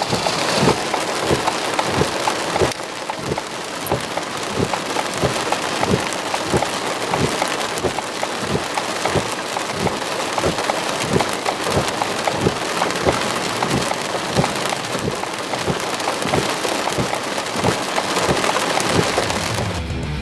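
Heavy rain hitting the car, heard from inside it: a dense, steady patter of drops striking the roof and windshield.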